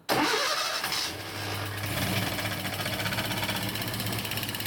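Datsun A12 four-cylinder engine with a single-injector throttle-body EFI conversion starting on the key: it catches at once, flares briefly, and settles to a steady idle about a second in. Over the idle a fast, light ticking comes from the fuel injector.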